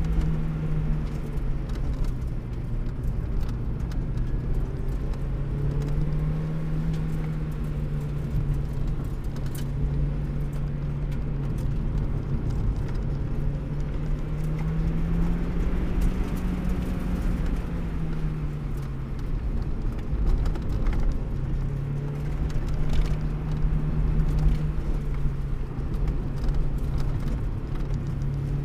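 Car engine running with road and tyre noise, heard from inside the car; the engine note slowly rises and falls several times as the speed changes.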